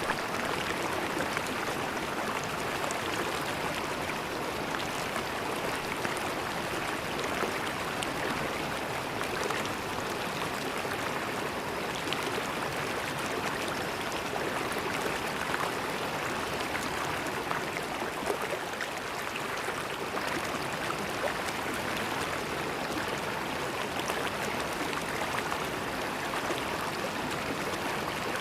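A river flowing steadily, its water splashing and gurgling in a dense, even rush.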